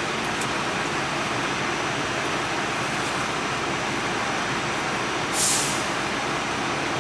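Inside a moving R46 New York City subway car: steady running noise of the train on the rails, with a brief hiss about five and a half seconds in.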